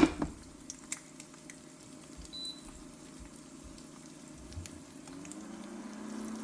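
Egg frying in bacon grease in a nonstick pan, a quiet sizzle with scattered small crackles. A sharp knock at the very start, and a low steady hum comes in near the end.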